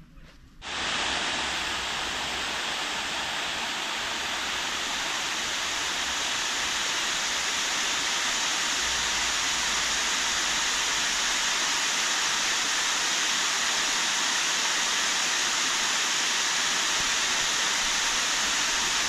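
Water pouring over a wide weir into a pool: a steady, even rush that starts suddenly about a second in.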